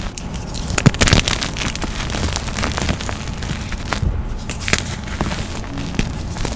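Hands squeezing and digging into a heap of soft white powder close to the microphone: continuous dense crunching and crackling, with the loudest crunch about a second in.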